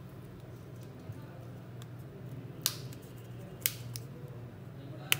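Three sharp clicks a second or so apart, the sound of small hand tools being handled or set down on a work bench, over a steady low hum.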